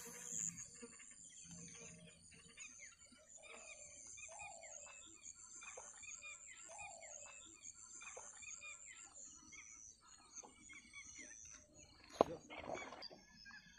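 Faint outdoor ambience of birds calling in short, repeated chirps over a steady high insect drone, with a single sharp click about twelve seconds in.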